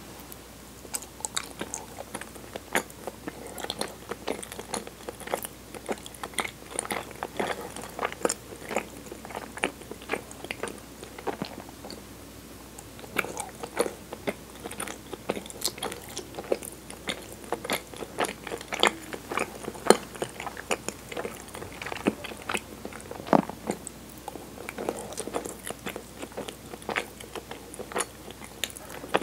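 Close-miked chewing of soft cinnamon chigiri mochi dusted with kinako, a bite taken from a cube at the start, then many short mouth smacks and clicks, with a quieter pause about twelve seconds in.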